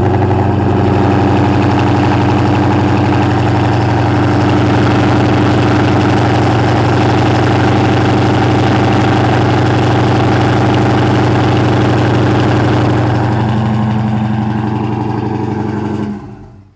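Chrysler 300's 5.7 Hemi V8, still on its stock exhaust manifolds without long-tube headers, idling loud and steady just after a cold start. The sound cuts off about a second before the end.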